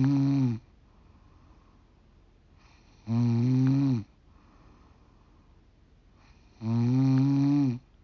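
A 45-year-old woman snoring: three loud, pitched snores about three and a half seconds apart, each lasting about a second and starting with a soft breathy rush of air.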